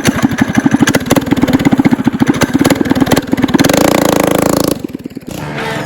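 Coleman CT200U-EX mini bike's 196cc single-cylinder engine running with a rapid, even putter, then revving up smoothly about three and a half seconds in before dropping away suddenly near the end.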